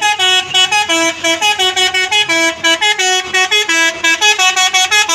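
Basuri telolet bus horn playing a fast tune of short, stepped notes, about four or five a second, loud and rising and falling in pitch.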